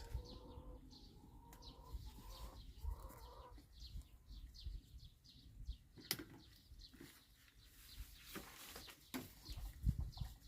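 Faint, repeated bird chirps, with a single sharp click about six seconds in.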